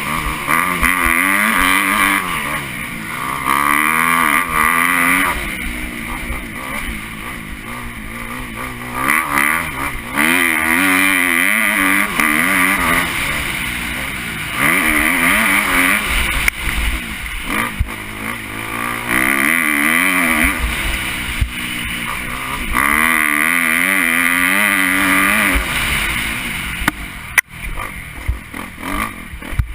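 A 2013 Kawasaki KX250F's four-stroke single-cylinder engine racing, revving hard for a few seconds at a time and backing off again and again. Near the end there is a brief sharp clatter and dropout.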